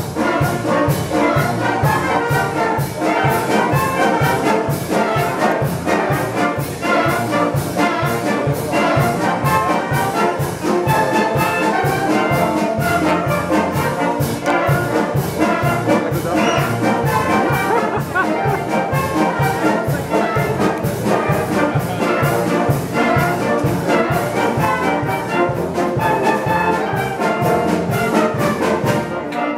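Youth wind band playing a lively piece with a steady beat, flutes, clarinets and saxophones together with trumpets and trombones.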